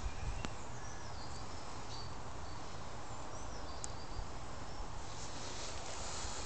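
Outdoor background: a steady low rumble like wind on the microphone, with scattered faint high-pitched chirps and two faint ticks, about half a second and about four seconds in.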